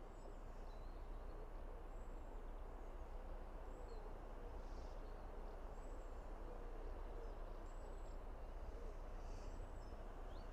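A bird repeatedly giving short high whistled calls, one every second or two, over a faint, steady low rumble of outdoor background noise.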